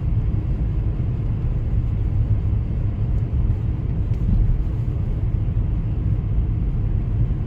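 Steady low rumble of a car driving along a highway, heard from inside the cabin: road and tyre noise with the engine underneath.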